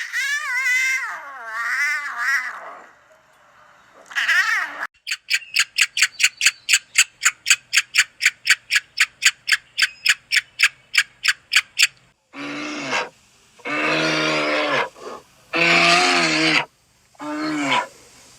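A series of different animal calls. A wavering call comes first, then a fast run of evenly repeated sharp calls, about three or four a second, lasting about seven seconds. Several lower calls about a second long follow.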